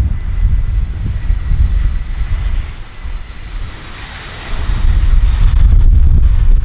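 Jet airliner's engines heard over heavy, gusting wind buffeting the microphone, with a thin high whine early on; the engine sound dips, then swells louder about four and a half seconds in.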